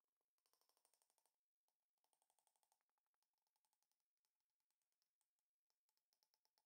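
Near silence: the sound track is all but muted.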